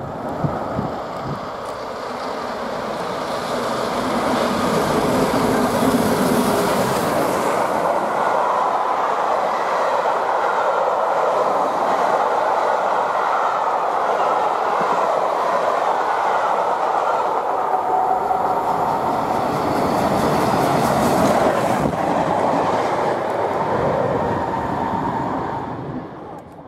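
Steam-hauled passenger train passing at speed, its coaches clattering over the rails, the noise fading away near the end.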